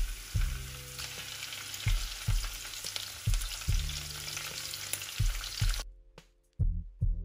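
Raw prawns sizzling as they are laid into hot olive oil with sliced garlic in a frying pan. The steady sizzle cuts off suddenly near the end, leaving background music with a beat, which also plays faintly under the frying.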